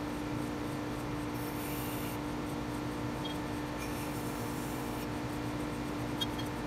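Work Sharp tool sharpener running with a steady hum while a plane iron is pressed to its spinning abrasive disc, giving a scraping hiss twice in short passes.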